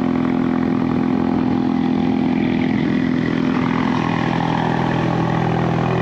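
Ford Mustang EcoBoost's turbocharged four-cylinder engine idling steadily through the quad exhaust, a couple of seconds after a cold start.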